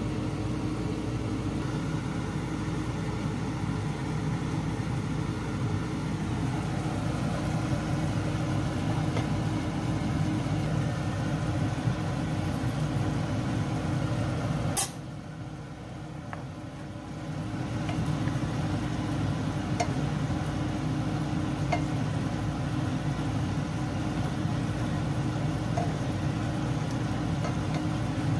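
A steady low mechanical hum. About halfway through it is broken by a sharp click and a few quieter seconds, then it returns.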